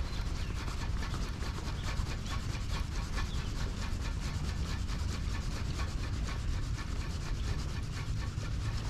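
Spinning reel being cranked on a steady retrieve, giving a fast, even rasping tick. Wind rumbles on the microphone underneath.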